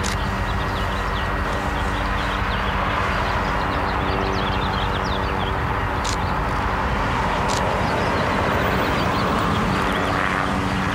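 Steady outdoor rumble of road traffic with a steady low hum underneath, and a scatter of short high chirps in the middle.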